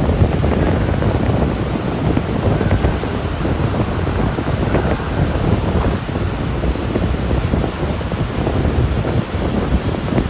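The Goðafoss waterfall rushing: a loud, steady wash of falling water, with low gusts of wind buffeting the microphone.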